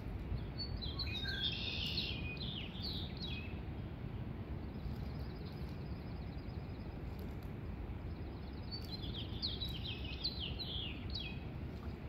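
A songbird singing two short phrases of quick sliding notes, about a second in and again near the end, over a steady low background rumble.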